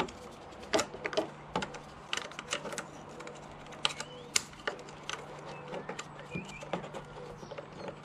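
Irregular small clicks and taps of hands handling a voltmeter and its mounting bracket around a motorcycle's ignition lock, about a dozen scattered knocks over a faint steady hum.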